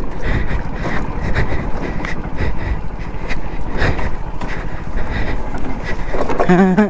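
Hero Splendor single-cylinder motorcycle running slowly over a rough, rocky track, with continuous rattling and frequent knocks as the bike jolts over stones.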